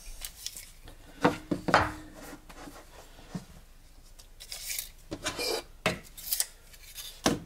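Hands working at a workbench: scattered short knocks, scrapes and light clicks as wooden pieces and screws are picked up, moved and set down.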